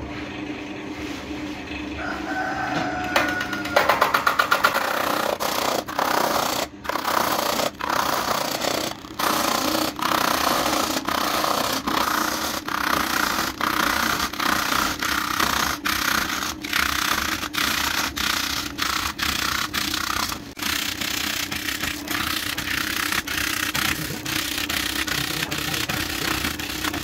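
Wood lathe spinning a coconut palm log while a hand-held turning tool cuts into it: a steady motor hum under a loud scraping rasp of the cut, which starts about three seconds in with a rapid run of knocks. The rasp carries on, breaking off briefly now and then.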